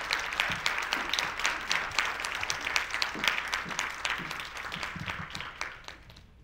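Audience applauding, dense clapping that gradually thins and dies away near the end.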